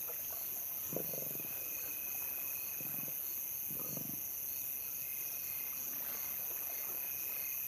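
Lions growling in a few short, low bursts while feeding at a kill, over a steady high chorus of night insects. The growls come in the first half; after that only the insects carry on.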